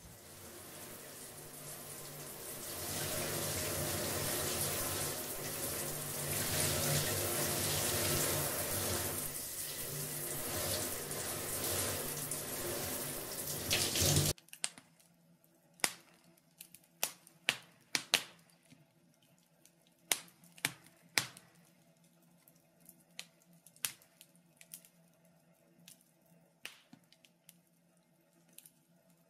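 Water running steadily from a tap, cut off suddenly about halfway through. Single drips follow, scattered and irregular.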